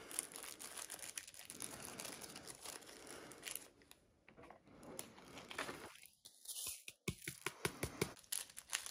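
Small plastic bags of diamond painting drills crinkling and rustling as they are handled, with many small clicks. The rustling eases off briefly about halfway through.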